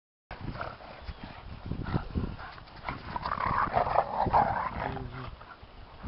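A boxer and a bulldog playing rough in the snow: dog play noises with scuffling and thumping of paws in the snow, loudest about halfway through.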